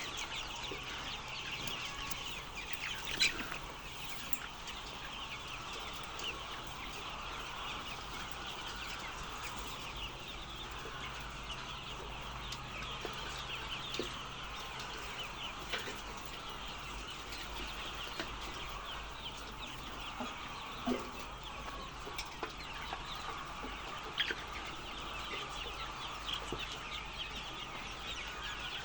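A flock of chickens clucking and chirping in a steady, dense chatter, with a few louder single calls standing out.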